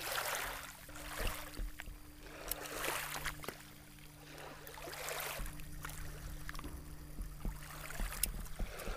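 Lake water washing and lapping in the shallows, in swells that come and go every couple of seconds, with small clicks and a faint steady low hum underneath.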